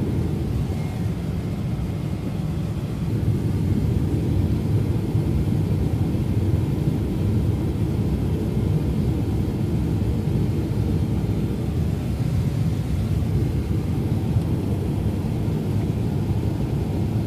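Steady low rumble of engine and airflow noise inside an airliner's passenger cabin during its landing approach, growing slightly louder about three seconds in.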